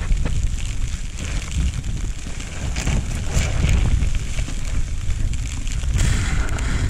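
Wind buffeting the microphone: a heavy, irregular low rumble with a light hiss, and a louder rush of hiss about six seconds in.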